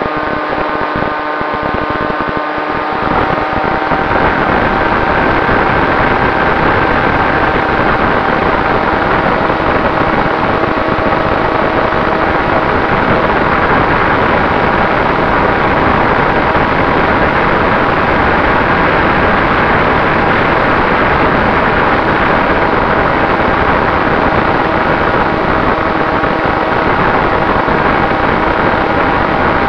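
Onboard camera sound of an FPV aircraft in flight: a steady rush of wind over the microphone mixed with the steady whine of its motor and propeller.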